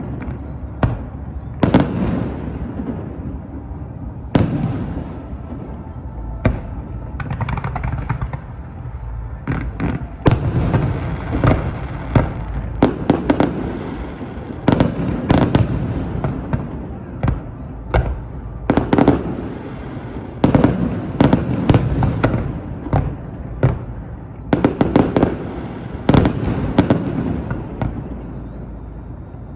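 Fireworks display: aerial shells bursting in irregular salvos, several bangs often in quick succession, each followed by a rolling echo, over a continuous rumble.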